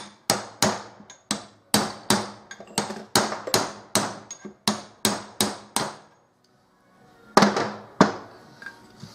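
Hammer blows on metal, driving a seal out of a Suzuki TS250 engine case: a quick run of ringing strikes about three a second, then after a short pause two harder blows.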